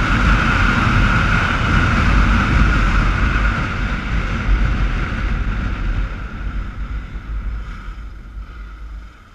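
Wind buffeting the helmet-mounted microphone over the Honda NX4 Falcon's single-cylinder engine as the motorcycle is ridden along a street. The noise dies away over the last few seconds as the bike slows.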